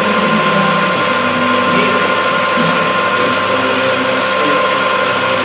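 CNC machine running steadily during gearbox-part machining, a loud even mechanical noise with a steady whine in it. Voices are faintly heard under it.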